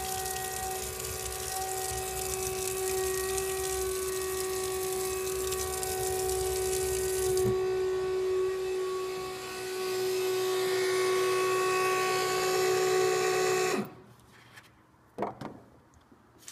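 Small 12-volt diaphragm transfer pump running with a steady whine, water rushing from the faucet into the utility sink. About halfway the hiss of the flowing water drops away while the pump keeps whining, then it stops suddenly near the end.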